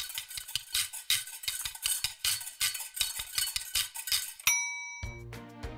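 Rapid, irregular clinking and clattering of kitchen utensils and dishes for about four and a half seconds, then a single bright bell-like ding that rings briefly and fades. Music with a steady bass line comes in near the end.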